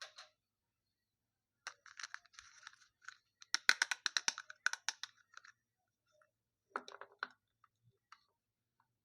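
Packaging being handled and opened: a dense run of crinkles and sharp clicks lasting a few seconds, then a shorter run about seven seconds in.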